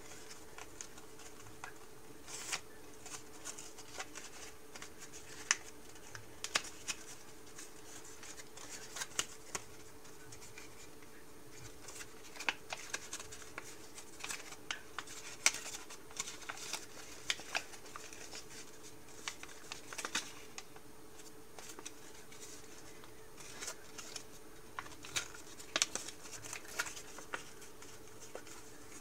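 Origami paper crinkling and rustling as fingers fold and crease it: irregular short crackles and scratches, with a couple of quieter stretches. A faint steady hum runs underneath.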